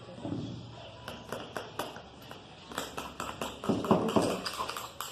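A spoon stirring freshly activated glue slime in a container, with rapid clicking and tapping against the sides and wet squelching, busiest about four seconds in.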